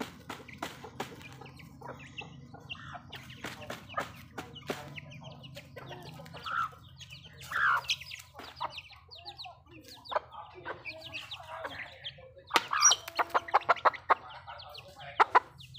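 Chickens clucking while they feed, with chicks giving short high peeps. Near the end comes a quick run of loud, rapidly repeated clucks.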